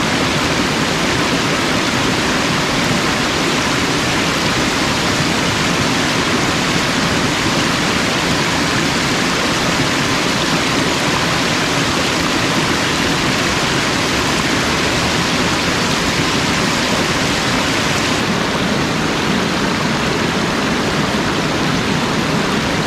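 Small waterfall's water rushing and splashing in a steady, loud wash.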